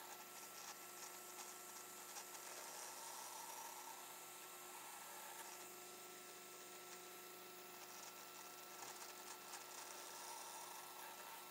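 Benchtop drill press motor running: a faint, steady hum.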